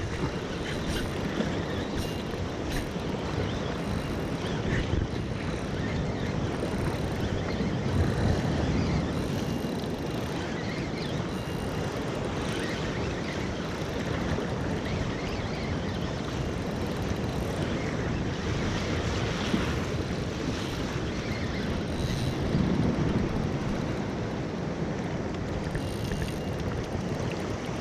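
Sea surf washing against coastal rocks with wind buffeting the microphone, a steady rushing that swells a little now and then.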